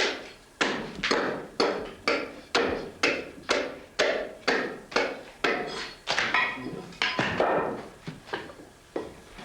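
A hand tool striking wood in an even rhythm, about two blows a second, each with a short ringing tail; the blows turn softer over the last few seconds.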